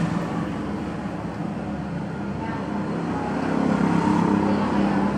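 Steady low background drone of a motor, growing louder about three and a half seconds in.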